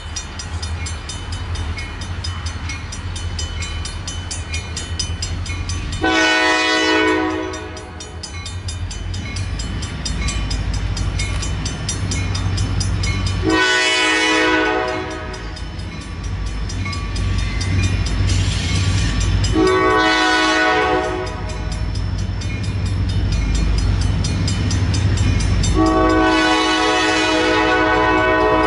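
Diesel locomotive's air horn sounding the grade-crossing signal (long, long, short, long) as a freight train approaches, over the steady low rumble of its engines. The last long blast starts near the end and is still sounding when the clip ends.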